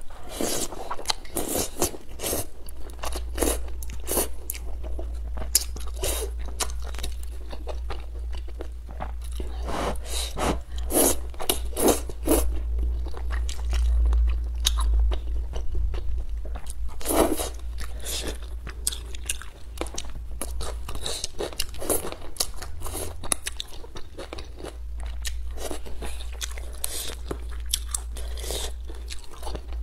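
Close-miked eating: a person slurping and chewing thick, sauce-coated rice noodles, with many quick, irregular mouth clicks over a steady low hum.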